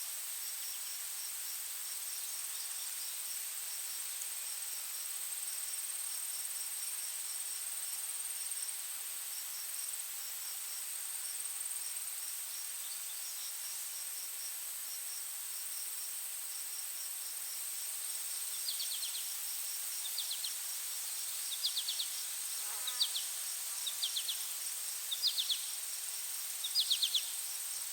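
Forest insect chorus: a steady, high-pitched drone with a faint, rapid pulsing chirp over a soft hiss. About two-thirds of the way in, short, sharp calls start repeating roughly once a second.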